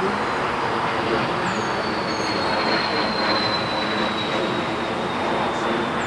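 Steady noise of distant vehicle traffic, with a long, thin, high whine that slowly falls in pitch and a few short, high, falling chirps.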